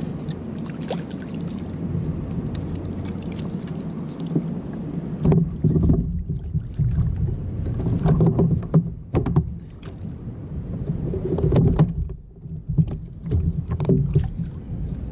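Wind and water on a fishing kayak. From about five seconds in come irregular knocks and thumps against the kayak as a freshly caught Chilean bonito is unhooked and handled aboard.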